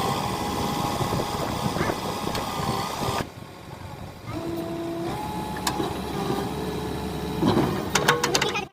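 JCB 3DX Eco backhoe loader's diesel engine running, its steady tone stepping up and down in pitch. It drops away briefly about three seconds in, comes back, and a few sharp clicks near the end are followed by a sudden cut-off.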